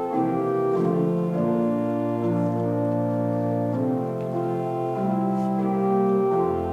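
Organ playing slow, held chords that change every second or two, with a low bass note coming in near the end.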